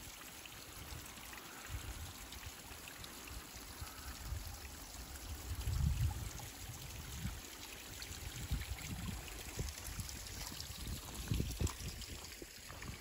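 Water trickling and dripping steadily in many thin streams off a mossy rock ledge, a constant splashing hiss. A few low thumps come through about six seconds in and again near the end.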